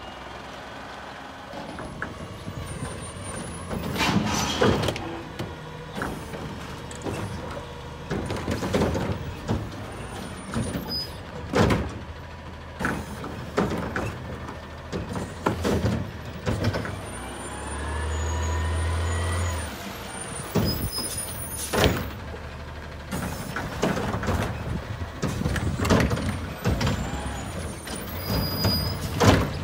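Garbage truck collecting wheeled carts: its diesel engine runs steadily and revs hard for a second or two near the middle to drive the hydraulic arm that lifts and tips carts over the cab. Repeated bangs and clanks of carts and lifting gear, with a few rising hydraulic whines.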